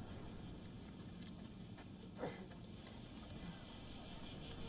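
Faint, high-pitched insect chorus, pulsing at first and turning steadier and louder in the second half. A single short click comes about two seconds in.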